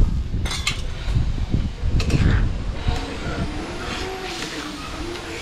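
Metal spatula stirring thick masala gravy in an iron wok, with a few sharp knocks against the pan, under a heavy low rumble that eases after about two and a half seconds.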